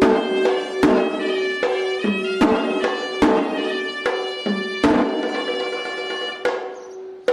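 Sri Lankan hevisi temple music: sharp drum strokes in an uneven rhythm with the reedy melody of a horanewa shawm, over a temple bell's steady ringing tone.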